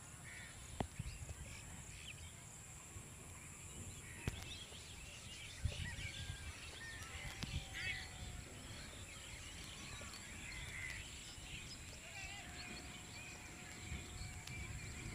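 Open-field ambience: many small bird chirps over a steady high-pitched hiss and a low rumble of wind on the microphone, with a few sharp clicks and two long faint whistling tones.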